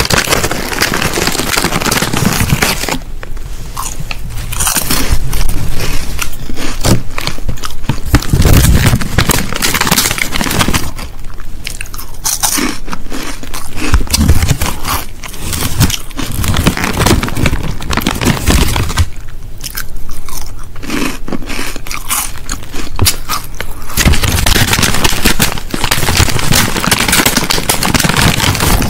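Crisps being bitten and chewed close to the microphone: loud, crackling crunches in spells, broken by a few short quieter pauses.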